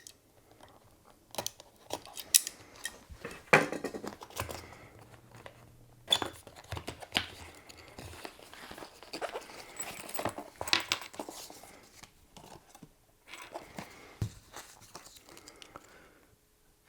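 Hands unpacking a small boxed LED video light: packaging rustling and crinkling, broken by irregular clicks and taps, with short pauses between.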